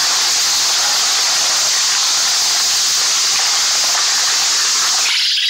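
A loud, steady rushing hiss with little low rumble in it. About five seconds in, its lower part drops away and only the higher hiss remains.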